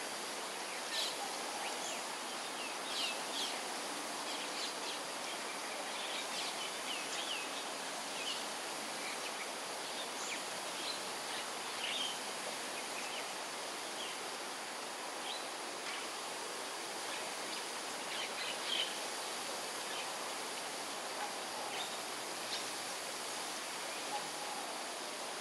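Wild songbirds giving scattered short, high chirps and calls over a steady background hiss, with small clusters of calls about a second to four seconds in and again around eighteen seconds in.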